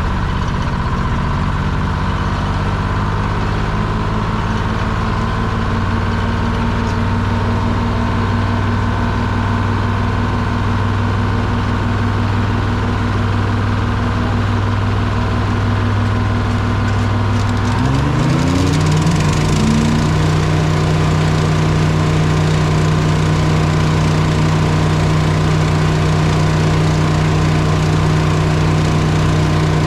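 Diesel engine idling steadily, then about eighteen seconds in it is throttled up and settles at a higher, steady speed.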